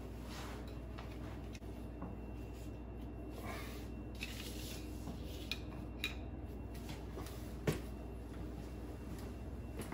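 Scattered light metal clinks and rubbing as a stern drive and its hardware are worked into position, with a steady low hum underneath. One sharper click comes about three-quarters of the way through.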